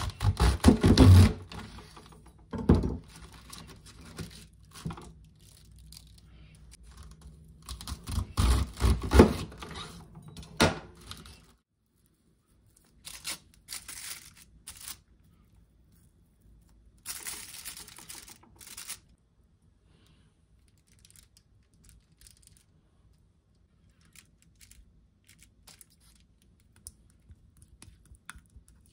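A large kitchen knife chopping through a raw cabbage: crisp, crunching cuts with thuds on the board, loudest in the first ten seconds or so. After a pause come quieter rustles and crinkles of aluminium foil as potatoes are handled on it.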